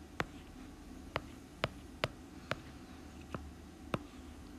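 About seven short, sharp clicks at irregular intervals, roughly one every half second, from the input device drawing a circuit diagram on a digital whiteboard. A faint steady hum sits underneath.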